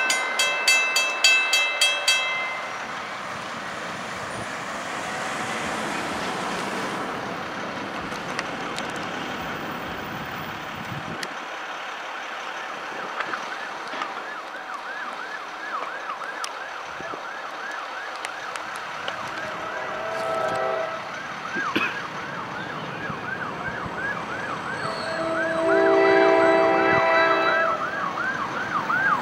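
A railroad crossing's mechanical bell rings rapidly and stops about two seconds in, leaving traffic noise. From about halfway through, an emergency vehicle's siren yelps over and over, with several loud, sustained multi-tone horn blasts near the end.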